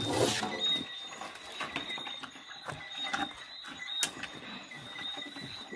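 Scattered scrapes, rustles and clicks as plastic drums and debris are shifted in the search for a land crab, with a louder scrape right at the start and a sharp click about four seconds in. A faint steady high-pitched tone runs underneath.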